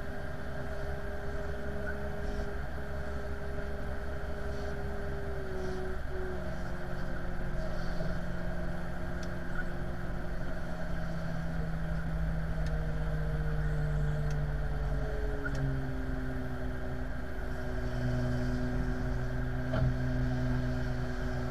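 Steady engine drone of an airliner pushback, a low rumble under several humming tones that step and slide in pitch about six seconds in and again around twelve to fifteen seconds in.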